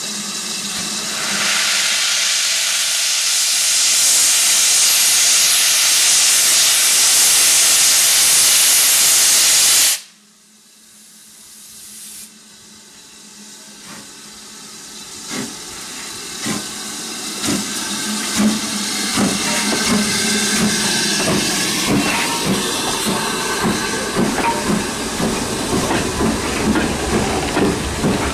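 BR Standard class 9F steam locomotive blowing off steam in a loud, steady hiss that cuts off abruptly about ten seconds in. It then starts its train, its exhaust beats slow at first and coming quicker and louder as it pulls away past.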